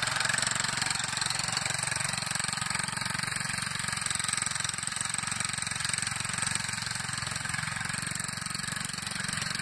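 Small engine of a vintage David Bradley walk-behind tractor running steadily under way, growing slightly fainter as it pulls away. It runs smooth, with no missing, stuttering or knocking: the sign of an engine in good running order.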